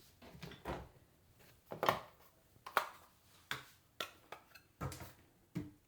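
Makeup containers and lids being handled and set down on a hard surface: a string of about eight sharp clicks and knocks at uneven intervals.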